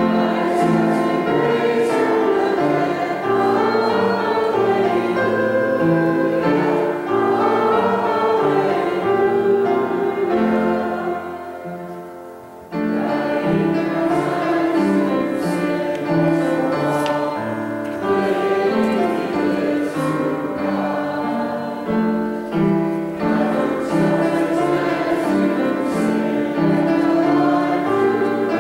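Congregation singing a hymn together with keyboard accompaniment. The music tapers off on a held note about ten seconds in, then the singing and accompaniment start up again abruptly about two seconds later.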